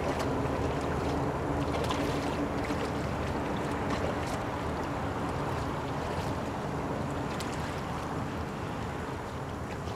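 Steady low engine drone with a faint held tone that fades away about seven seconds in; the whole sound eases slightly toward the end. A few light clicks.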